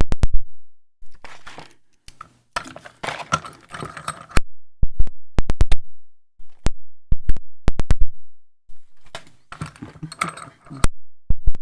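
A Segal lock and its keys being handled: a string of sharp metallic clicks and clinks, with two stretches of rattling and scraping, one a few seconds in and one near the end.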